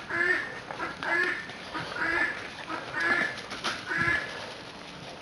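An animal call repeated five times, about once a second, stopping about four seconds in.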